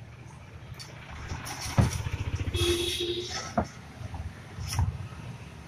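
A passing motor vehicle's engine running in the background, loudest around the middle, with a short tone sounding twice in quick succession. A few sharp knocks come from the steel speaker frame being handled.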